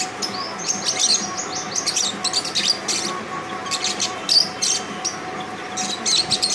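Small birds chirping in quick, high twittering bursts, over a faint steady hum.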